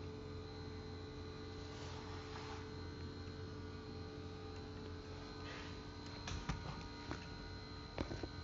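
Steady electrical hum, with a couple of soft rustles and a few light clicks and knocks in the second half.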